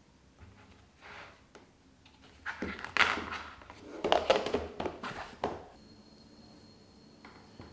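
A snap-on plastic lid being pressed onto a plastic food container, with a run of clicks and crackles lasting about three seconds.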